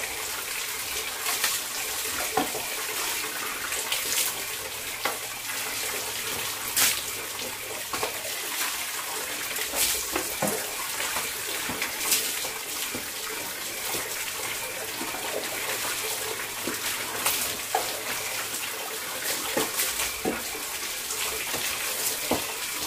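Bucket bath: water scooped from a plastic bucket with a dipper and poured over the body, splashing irregularly onto a concrete floor over a steady rush of running water.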